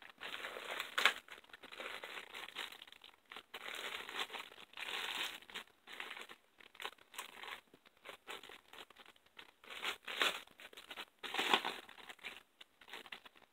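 Clear plastic wrapping crinkling and rustling as it is pulled open and off an object by hand, in irregular crackles, with louder bursts about a second in and twice near the end.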